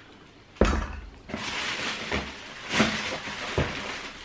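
Handling noise from a trainer and its shoebox: a sharp knock about half a second in, then a few seconds of rustling with light knocks, as the box contents are gone through.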